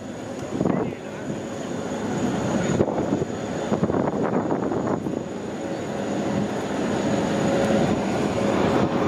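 Aircraft engine noise, a steady rushing sound with a faint steady tone, growing gradually louder.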